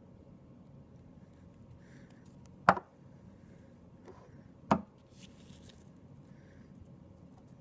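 Two sharp knocks about two seconds apart as a plastic super glue bottle and small broken plastic pieces are handled against a paper-covered tabletop, with a faint rustle after the second.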